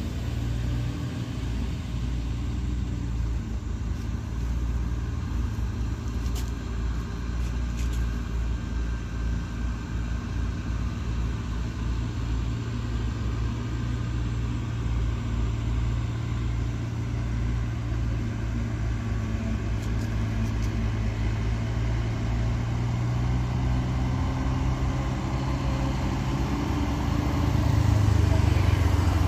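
Diesel truck engines pulling up a steep climb: a steady low engine drone that grows louder near the end as a truck comes close.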